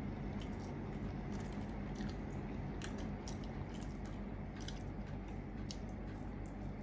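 A person chewing thin pretzel-crust pizza, with irregular short wet mouth clicks and smacks and another bite near the end, over a steady low hum.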